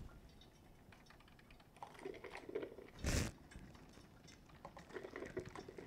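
Zojirushi EC-YTC100 drip coffee maker brewing: a faint crackling gurgle as coffee drips down into its stainless thermal carafe, in two stretches, with one short sharp pop about three seconds in.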